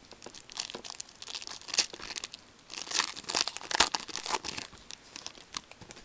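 Plastic foil trading-card pack wrapper being torn open and crinkled by hand, a dense run of crackling that is busiest in the middle and thins out near the end.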